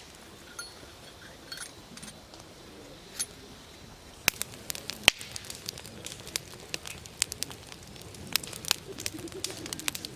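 Wood campfire crackling and popping: a few scattered pops at first, then frequent sharp pops and snaps from about four seconds in.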